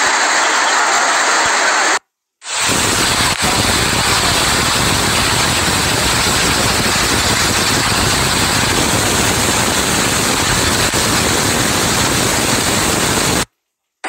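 Steady, loud rushing hiss of heavy rain and running water, cutting out briefly about two seconds in and again near the end. The longer middle stretch carries a deeper rumble under the hiss.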